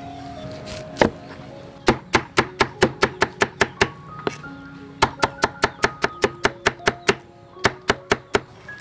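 A knife chopping pineapple on a wooden chopping board in quick, even runs of about four chops a second, the loudest sound here, over background music with a light melody.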